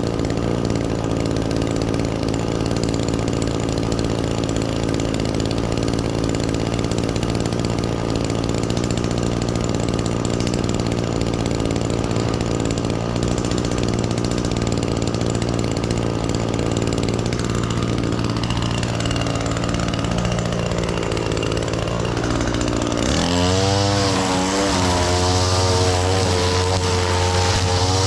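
Small two-stroke string trimmer engine (Echo SRM-225) idling steadily, then throttled up a little over 20 seconds in, its pitch sweeping upward to a steady high-speed run with a strong high hiss.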